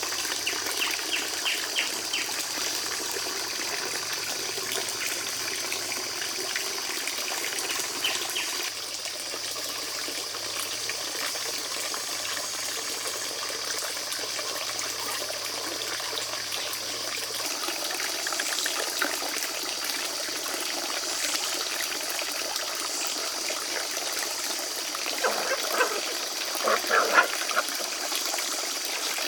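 Water trickling steadily, with a few louder short sounds near the end.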